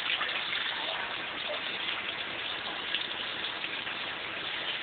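Tap water running steadily from a sink faucet and splashing onto a newborn's head and into the basin as her hair is rinsed.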